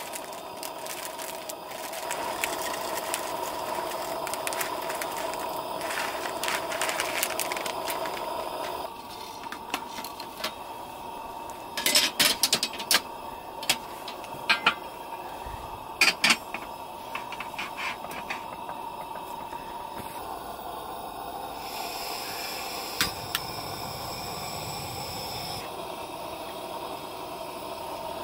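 Camp cooking sounds: a spoon scraping and mixing in a metal pot, several sharp clicks or knocks near the middle, and a gas burner running under a takoyaki plate.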